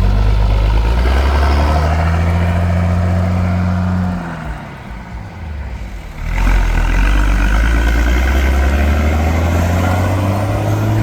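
Mercedes-Benz O-362 monobloco bus's diesel engine being revved: held at high revs for about four seconds, then dropping back toward idle when the throttle is let off, and revving up again about six seconds in, the pitch climbing.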